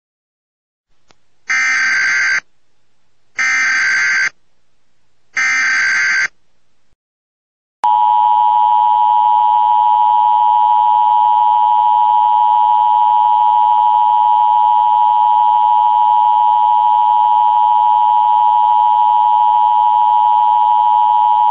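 Emergency Alert System header: three short bursts of warbling data tones, about two seconds apart. About eight seconds in, the two-tone attention signal starts, a steady harsh dual tone held for about fourteen seconds, announcing an alert.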